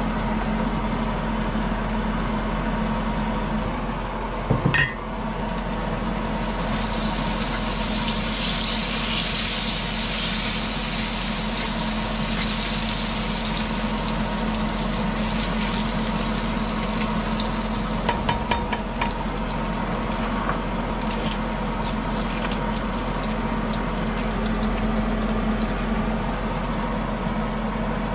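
Food frying in a hot pan: a knock about five seconds in, then a strong sizzle that fades over about ten seconds, with a few clicks after it. A steady low hum runs underneath.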